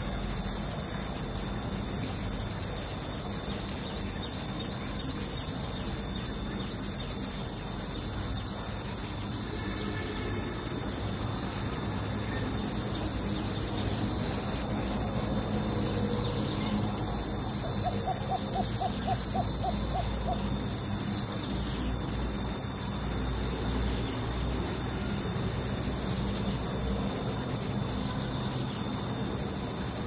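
Insects droning in a steady, high-pitched whine made of two unbroken tones, typical of tropical cicadas. About eighteen seconds in, a short run of about nine quick, evenly spaced notes sounds beneath it.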